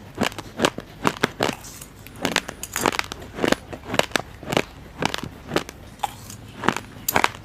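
Uncooked rice grains crunched between the teeth while chewing: sharp, crackling crunches at an uneven pace, roughly two a second.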